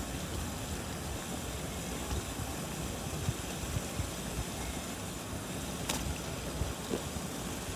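Pot of salted water at a rolling boil on a portable gas burner, a steady low rumbling bubble and hiss. About six seconds in, a live crayfish is dropped into the boiling water with a short sharp splash.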